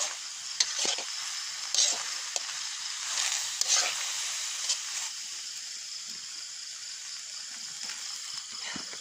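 Mushrooms and leaves sizzling in a steel wok over a wood fire, with a spatula scraping and clicking against the wok several times in the first five seconds. After that only the steady sizzle goes on.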